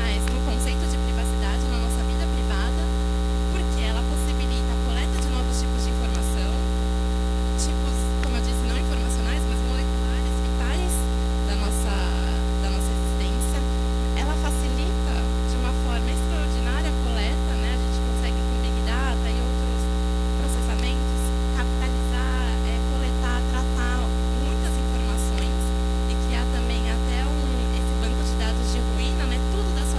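Loud, steady electrical mains hum with a low buzz that does not change. Faint, indistinct voices lie underneath it.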